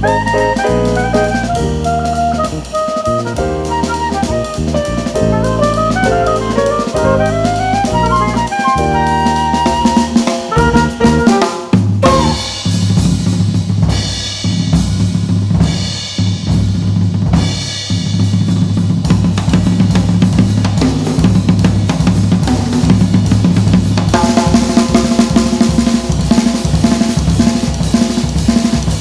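Instrumental jazz from a small band of oboe, flute, piano, bass guitar and drum kit. It opens with a woodwind and piano melody over bass and drums, then about twelve seconds in gives way to a drum-led passage of snare, bass drum and rimshots over the bass.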